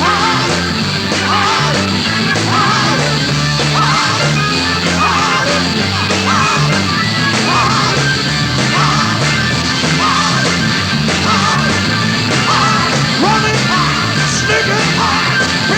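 Rock band playing a loud, driving passage with steady drums and bass under short repeated melodic phrases.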